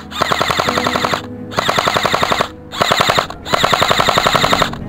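Airsoft electric rifle firing full-auto: four fast rattling bursts, the first and last about a second long and the middle two shorter, with brief pauses between them.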